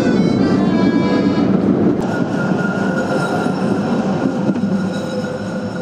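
Train running: a steady low rumble of the carriage in motion with a faint steady whine. A stepping melody of music fades out during the first second and a half, and the rumble takes over abruptly about two seconds in.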